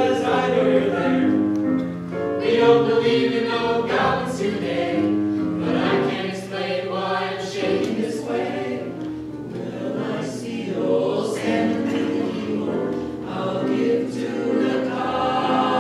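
Small mixed ensemble of men's and women's voices singing together in harmony into handheld microphones.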